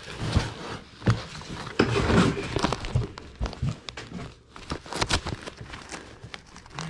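Rummaging through boxes of stored belongings: crinkling and rustling, loudest about two seconds in, with a run of small knocks and clicks as items are handled and set down.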